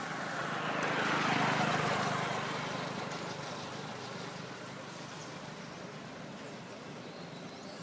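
A vehicle passing on the road, its noise swelling to a peak about a second and a half in and fading away over the next couple of seconds.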